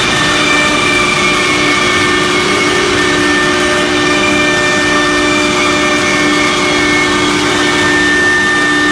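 CNC router with a 6 kW HSD spindle running steadily as its head travels across the board. Several steady whining tones sit over a loud, even rushing noise.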